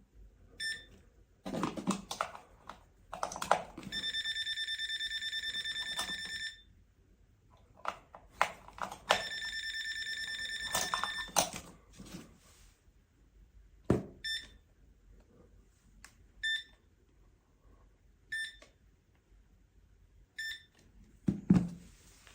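TESMEN TM-510 digital multimeter's beeper: two long steady beeps of about two and a half seconds each, like the continuity buzzer sounding while the probes touch, and several short single beeps. Clicks and handling knocks from the probes and meter come in between.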